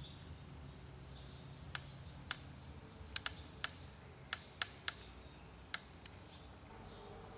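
A run of about nine sharp, irregular clicks over a faint steady low hum, starting about two seconds in and stopping near six seconds.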